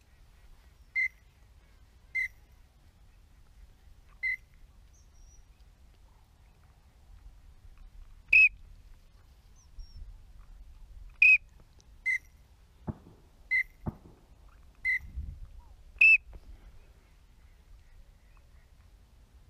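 Nine short, loud whistled notes at uneven gaps, some a little higher-pitched than others, with two sharp knocks and a brief low thump near the middle.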